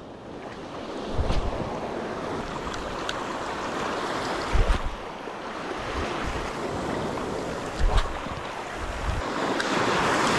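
Small sea waves washing and foaming over a rocky shore, growing louder near the end, with a few low bumps of wind on the microphone.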